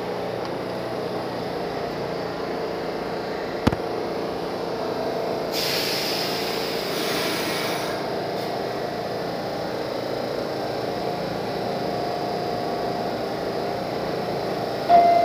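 A New York City subway train standing at the platform with its doors open, its equipment giving a steady hum. About three and a half seconds in there is a single sharp click, and around six seconds in a hiss of released air lasts about two seconds. Right at the end the door chime begins.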